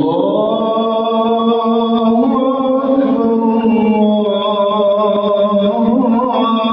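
A man's chanting voice holding long, drawn-out notes that bend slowly, with a brief ornamented run about six seconds in.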